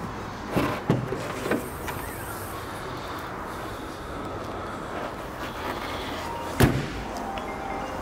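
A few light knocks, then one sharp bang about six and a half seconds in, over steady background noise.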